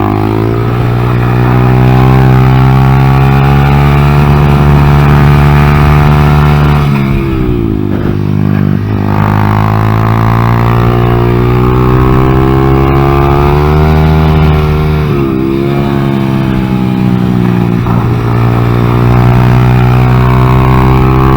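2014 Honda Grom's small single-cylinder engine running hard on track, its pitch climbing slowly under throttle, falling off steeply about seven seconds in and again near fifteen seconds and at the end as the throttle is closed, then climbing again.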